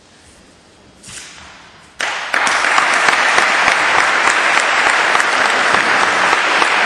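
Audience applauding: a quiet pause breaks into sudden, loud, sustained clapping about two seconds in.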